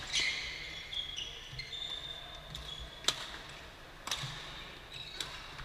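Badminton rally: sharp cracks of rackets striking the shuttlecock, four in all, the last three about a second apart, with shoes squeaking on the court floor in between.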